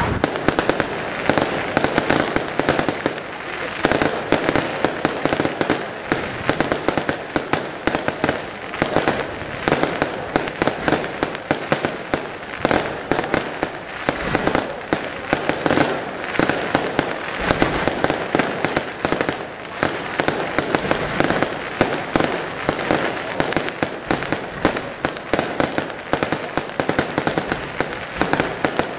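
Aerial fireworks display: a dense, continuous run of sharp bangs and crackling from shells bursting overhead, with no let-up.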